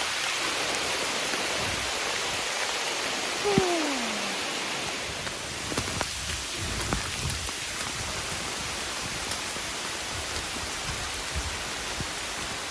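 Steady rain from a passing storm, with scattered small ticks of drops. About three and a half seconds in there is a short falling tone.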